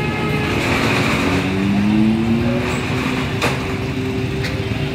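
Busy street traffic with engines running close by; one engine rises in pitch as it revs between about one and two seconds in. A single sharp click comes near the middle.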